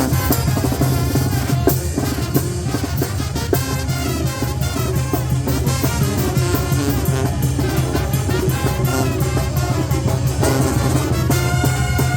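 Live banda, brass and woodwinds over a bass drum and snare, playing a fast dance tune. Near the end the horns hold long, steady notes over the drumming.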